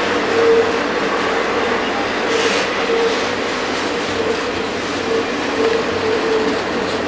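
Train running past on the rails: a steady noise of wheels on track with some clatter and a faint, pulsing steady tone.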